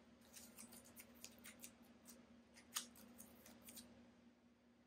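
Yellow masking tape being peeled off a painted metal panel: faint, crisp crackling ticks, with one sharper snap nearly three seconds in, dying away after about four seconds.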